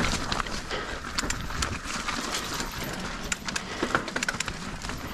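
Mountain bike rolling over rough trail, with many irregular clicks and rattles from the bike over a low rolling rumble.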